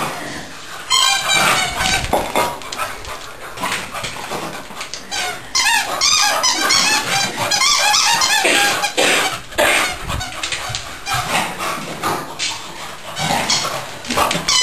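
A young beagle at play, with a quick run of short, high-pitched squeaks and yips and a few knocks on the hard floor.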